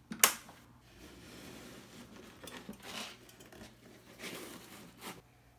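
Handling noise from hands working inside the open back of a guitar amplifier cabinet during reassembly: a sharp knock about a quarter second in, then irregular scraping and rustling, with another short knock near the end.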